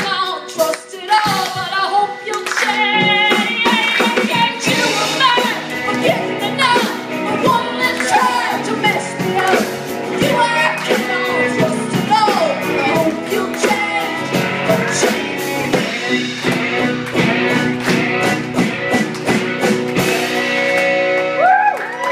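A woman singing a song live with guitar accompaniment, the guitar strummed steadily under the voice.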